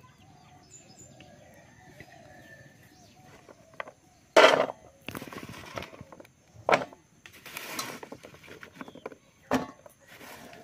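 Cut raw papaya cubes being scooped by hand off a bamboo tray and dropped into a steel bowl: a sharp clatter about four seconds in, then several more rustling scrapes and knocks.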